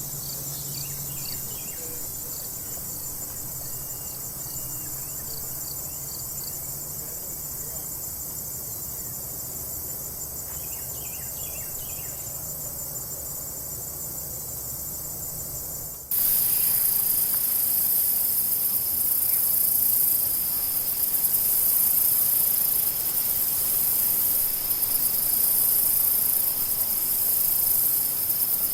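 Steady high-pitched chorus of insects such as crickets, with a few faint chirps in the first half. About halfway through it switches suddenly to a louder, fuller insect drone.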